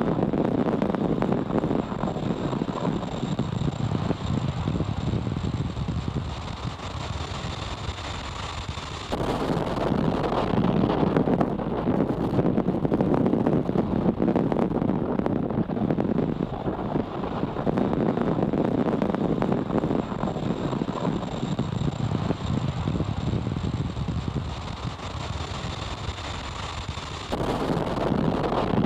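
Falcon 9 rocket in powered ascent, its nine Merlin 1D first-stage engines firing: a steady rumbling roar that steps up in loudness about nine seconds in and again near the end, with a faint thin high whine in parts.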